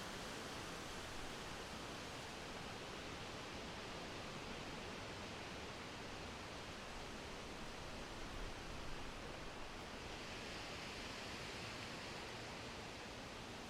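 Summer wind blowing through a forest, a steady rustle of leaves with gentle swells.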